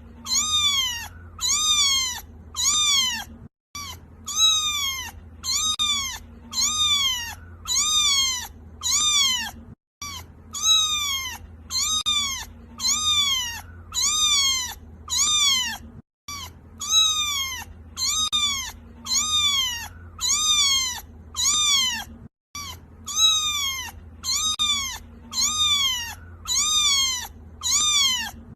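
Kitten crying with rapid, repeated high meows, each one rising and then falling in pitch, about one and a half a second. A short break comes about every six seconds as the same stretch of meowing repeats.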